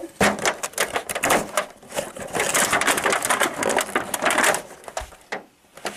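Cardboard advent-calendar door being pried and torn open by hand, with dense crackling and rustling of card as the stuck contents are worked loose. The noise eases briefly near the end.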